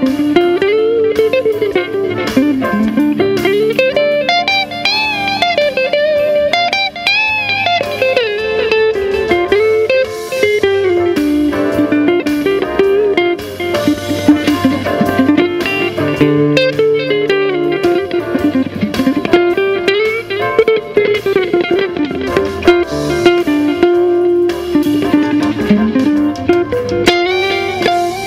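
Smooth jazz played on an archtop electric guitar. A single-note melody with bending, sliding notes runs over a steady bass line.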